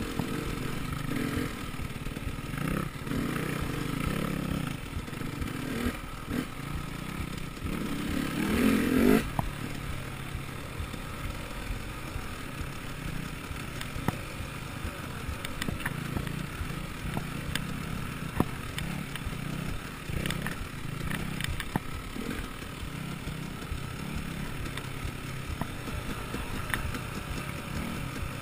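Enduro dirt bike engine running on board as the bike rides a rough forest trail, the throttle rising and falling, with one louder rev about eight to nine seconds in. Scattered knocks and rattles from the bike and camera mount jolting over the track.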